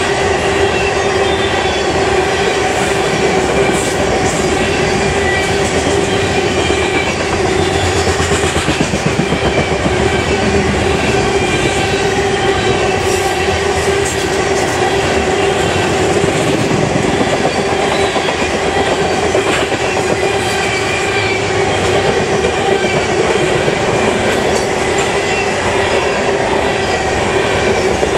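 BNSF grain train of covered hopper cars rolling past: a continuous rumble and rattle of steel wheels on rail with clicking wheels, over a steady hum.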